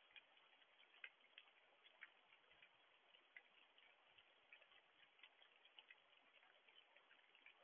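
Faint light rain: a soft steady hiss with scattered small, irregular ticks of drops falling close by.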